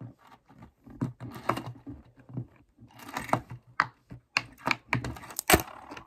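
Silicone pop-it fidget toy being pressed bubble by bubble, giving a run of irregular soft pops with a few louder ones near the end.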